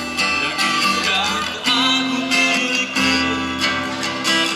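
A live band playing on an outdoor stage, with strummed guitar to the fore.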